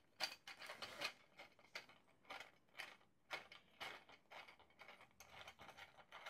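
Print-in-place 3D-printed plastic platform jack being cranked by hand: faint, irregular plastic clicks and rasps from its lead screw and scissor linkage as the platform rises.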